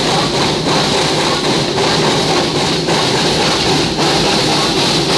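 Flagg Coal 75, an 0-4-0 steam locomotive, working hard under load: a loud, steady rush of steam exhaust and running-gear noise heard up close from the engine.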